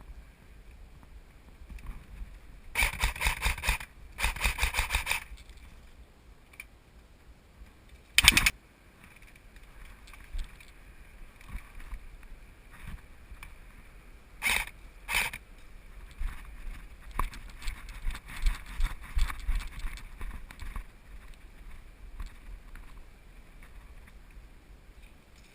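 Airsoft AK74 rifle firing two full-auto bursts of about a second each in quick succession, followed a few seconds later by a single loud knock and, later, two more sharp cracks under a second apart. Scattered low thuds and rustling fill the gaps.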